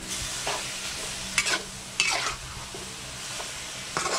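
Ground beef sizzling steadily as it browns in a metal wok, with a metal utensil scraping and turning it against the pan several times.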